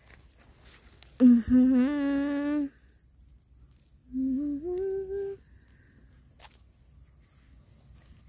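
A voice humming two short wordless notes, the first held steady for about a second and a half, the second shorter and rising in pitch. Insects keep up a steady high trilling underneath.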